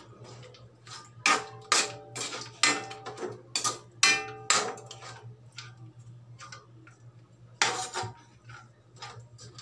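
Metal spoon and spatula knocking and scraping against a metal wok as chicken wings are stirred, each strike ringing briefly. A quick run of clanks fills the first half, with one more loud clank about three-quarters of the way through.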